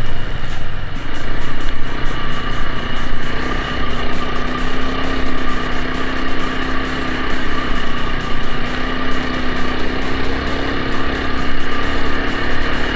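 Motorbike engine running steadily during a ride, with rattling and knocking from the track, and music in the background.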